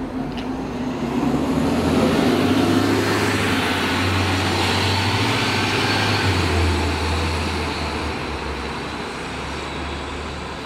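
A 2011 New Flyer C40LF CNG transit bus's natural-gas engine accelerating away from a stop. It builds to its loudest over the first few seconds, the engine note drops about six seconds in, and then it fades as the bus drives off.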